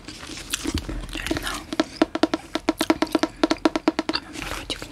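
Long fingernails tapping on a hardcover book's cover: a few scattered taps, then from about two seconds in a fast, even run of sharp taps, roughly eight a second, that stops a little after four seconds.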